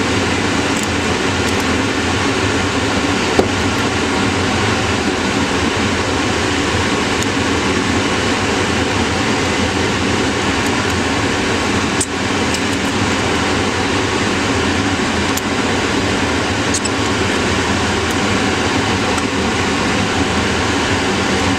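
Steady, loud rushing hum of a fan or air-handling unit. A couple of short clicks from a screwdriver working the screws of a hard drive's controller board come through it, one about three seconds in and one around twelve seconds.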